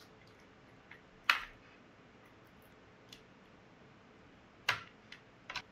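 A few sharp clicks from a bench crystal press fitting a new crystal into a watch case: a loud click about a second in, another near the end, and a couple of fainter ticks between and after.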